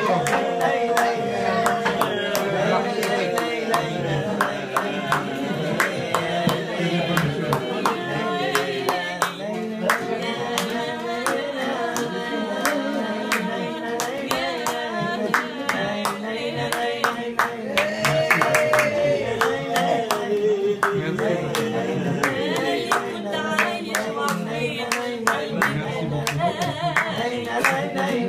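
Oud played with singing and rhythmic hand-clapping keeping time, several claps a second.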